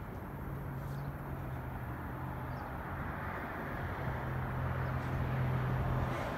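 Approaching passenger train: a rumble of wheels on rail that grows steadily louder, with a steady low hum underneath.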